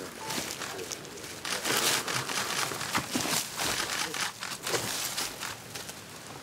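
Cloth rustling and scraping against rock in irregular bursts as a person squeezes through a narrow gap between boulders.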